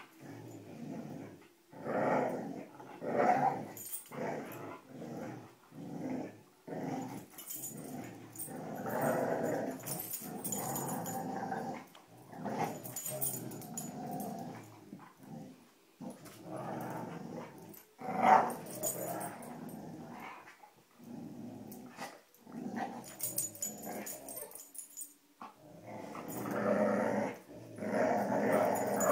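Dogs growling in play while tugging on a rope toy, in repeated bouts with short breaks between them.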